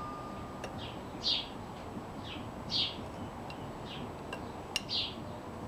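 A small bird chirping over and over, short high chirps coming about every second or so, with a steady hiss beneath and a faint click near the end.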